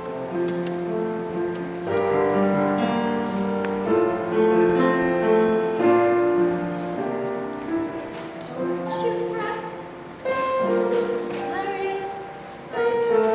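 Musical-theatre ballad with piano accompaniment and held notes, with singing about halfway through.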